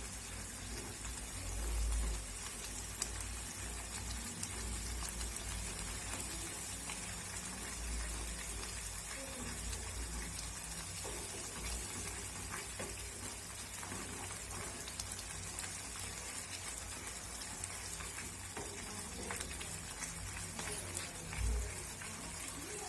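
Curry masala with ground coconut-cashew paste sizzling steadily in oil in a pan, with scattered light clicks and scrapes of it being stirred and a few low thumps.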